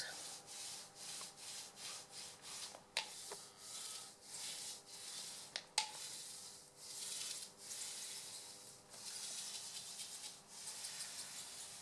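A small painter's roller rolled back and forth over soft wax on a heated painting plate: a faint, rhythmic rubbing hiss, about two strokes a second, with a couple of sharp clicks.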